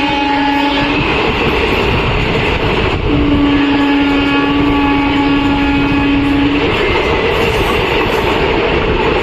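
Train running with a loud steady rumble, its locomotive horn sounding twice: one blast ending about a second in, then a held blast of about three and a half seconds.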